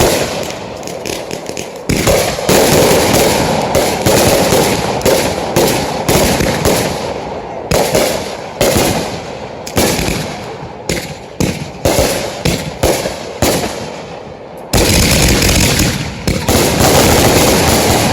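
Consumer fireworks going off in rapid succession: canister shells bursting, with sharp salute reports, one after another with barely a gap. About fifteen seconds in they merge into a dense, continuous barrage.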